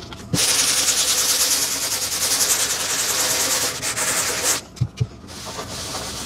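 Primed MDF panel being denibbed by hand with fine abrasive: a steady scratchy rubbing of back-and-forth strokes that eases off about four and a half seconds in. Two soft knocks follow, then lighter rubbing.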